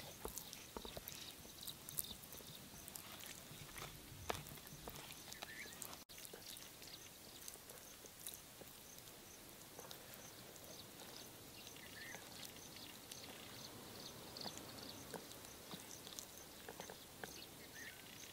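Hands massaging a thick red chilli pickle marinade into a whole raw fish: faint wet squelching and smacking of paste on skin and flesh, with a few sharper clicks in the first few seconds.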